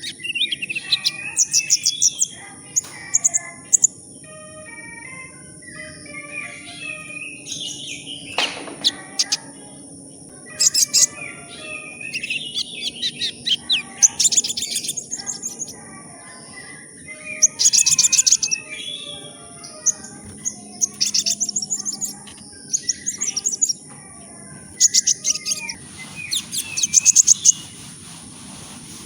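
Sunbird (the 'kolibri ninja' of Indonesian bird-keepers) singing: bursts of very fast, high, rattling trills and sharp chirps, repeated every few seconds, with a steady high hiss underneath.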